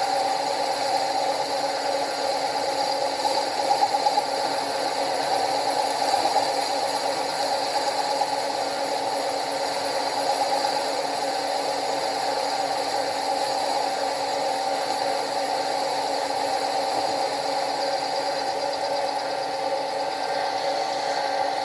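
Milling machine running a cutter through a right-angle head, taking a steady cut into a rusty steel boiler end: an even machine hum with several steady tones under the rattly noise of the cut, a little louder for moments about four and ten seconds in.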